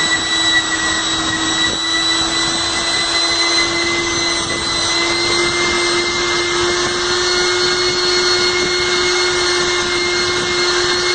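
WT-500 rotor-stator lab homogenizer running at high speed with its dispersing shaft in liquid: a steady motor whine with a hiss over it. Its pitch creeps slightly upward as the speed setting is raised.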